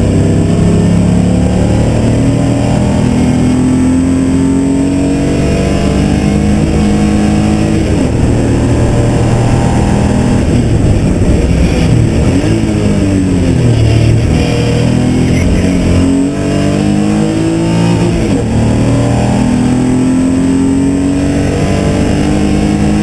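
BMW E30 race car engine heard from inside the cabin under hard acceleration, its pitch climbing steadily through the first ten seconds or so. It falls and rises again through the middle, then climbs again near the end.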